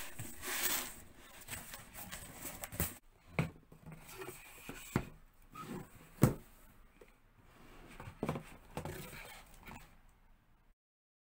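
A cardboard shipping box being opened by hand: packing tape peeled, cardboard rustling, then plastic supplement bottles and packaging handled and set down with several sharp knocks, the loudest about six seconds in.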